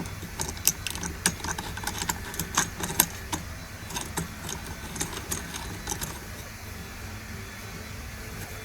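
Quick irregular clicks and rattles of small plastic and metal parts as a cable hook is screwed onto a lawnmower handle with its screw and washer, stopping after about six seconds.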